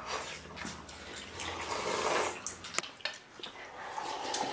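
People slurping broth from stainless-steel bowls, loudest in a long slurp around the middle, with a couple of sharp clicks of chopsticks against the bowls.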